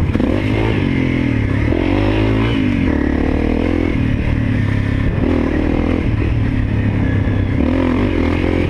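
Honda CRF250L's single-cylinder four-stroke engine running while being ridden, its pitch rising and falling again and again as the throttle opens and closes.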